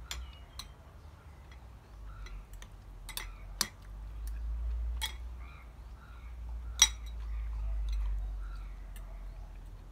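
Chopsticks and a spoon clinking and tapping against bowls as rice is stirred, with about a dozen sharp clinks, the loudest about seven seconds in, over a low rumble.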